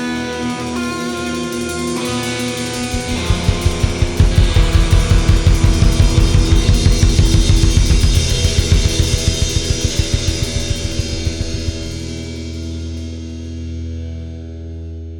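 Rock band with electric guitars, bass and drum kit playing a closing passage: a held guitar chord, then fast, even drum hits from about three seconds in that stop near the end, leaving the chord ringing and fading.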